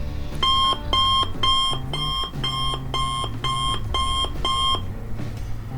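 An alarm beeping in a steady pattern, about two beeps a second, nine beeps in all, then it stops.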